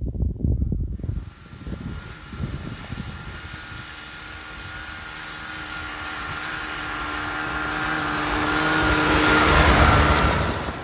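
Ski-Doo snowmobile engine, a steady engine note that grows louder as the machine approaches and comes close, loudest near the end. Wind buffets the microphone for about the first second.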